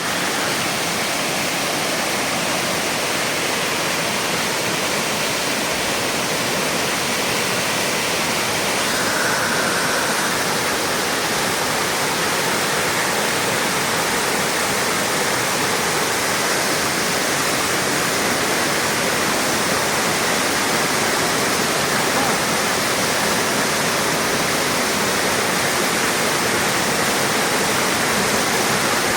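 Waterfall pouring steadily: an even, unbroken hiss of falling water.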